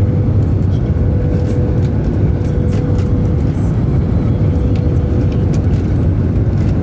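Jet airliner cabin noise in flight: a steady deep rumble of engines and rushing air with a thin constant hum, and faint light clicks and rattles from the cabin.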